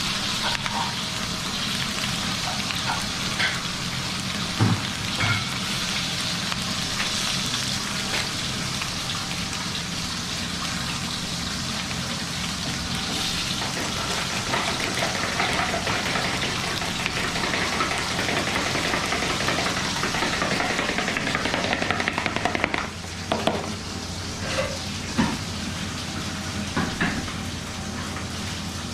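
Food sizzling steadily in hot oil in a pan, with a few short knocks of utensils against cookware here and there.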